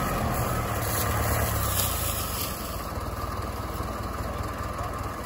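Diesel tractor engines idling with a low, even throb that drops a little in level about two and a half seconds in.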